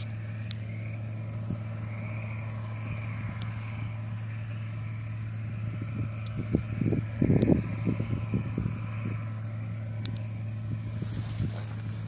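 Distant John Deere 630 combine harvester's 95 hp Perkins diesel engine droning steadily while it harvests. Past the middle, gusts of wind buffet the microphone, loudest for about a second.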